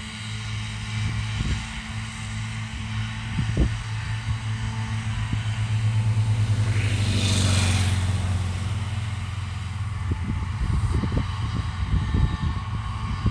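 Claas tractor's diesel engine running steadily at working revs while pulling a grass mower through a hay field. The noise swells loudest about halfway through, with a rising hiss. Irregular low rumbles come and go.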